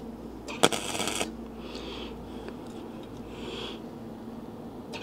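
Flux-core wire welder, a basic no-gas Silverline set to 43 A, striking a short arc to tack thin 0.8 mm sheet steel: one brief crackling burst about half a second in, under a second long, and another starting right at the end.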